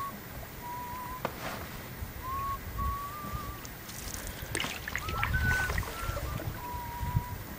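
A canoe being paddled: a wooden paddle working the water, with the water sounds of the strokes, a couple of sharp knocks, and a run of short, thin, wavering squeaks at much the same pitch repeating through the strokes.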